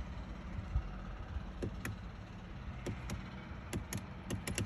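Light, sharp clicks over a low rumble, a couple about a second and a half in and a quicker run of them near the end.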